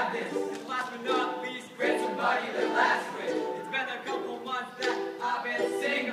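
Male a cappella group singing in close harmony: stacked voices repeat a short rhythmic backing figure, with no instruments.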